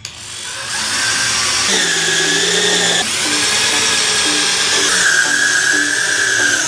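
Black+Decker Matrix drill driving a long screw into a wooden 2x4, the motor whining loudly and steadily. Its pitch shifts as the screw bites, with a short dip about three seconds in, and it stops suddenly at the end.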